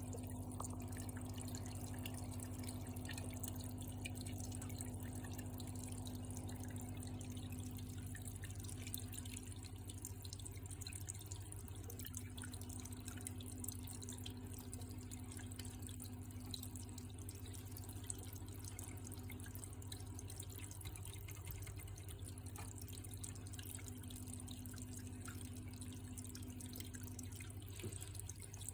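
Water dripping and trickling over a steady low hum.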